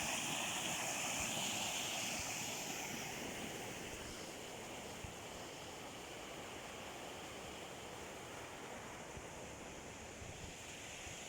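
Small stream flowing over rocks: a steady rush of running water that drops to a lower level a few seconds in.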